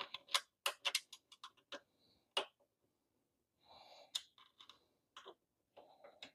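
Sharp metallic clicks as a steel Allen key is seated and turned in the bolts holding a soundbar bracket to an ATV's front rack: a quick cluster of clicks in the first couple of seconds, then fewer, softer handling noises.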